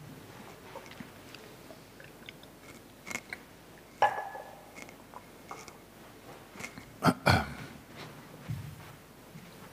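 Scattered clicks and knocks of a small wall cupboard and the communion cruets being handled. The cupboard is opened with a sharp click about four seconds in, and two sharp knocks, the loudest sounds, come about three seconds later.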